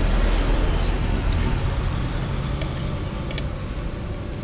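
A road vehicle passing close by, a low rumble that is loudest at the start and then fades. A few light clinks of a metal spoon against a plate come near the end.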